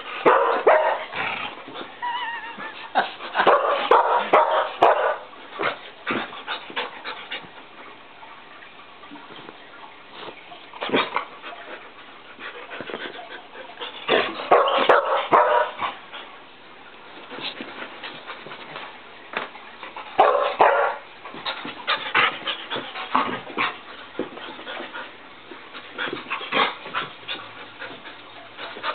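Samoyed puppy barking and yipping in play, in repeated bursts every few seconds.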